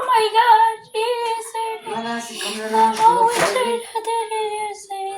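A high, child-like voice singing long held notes, the melody wavering slightly between them.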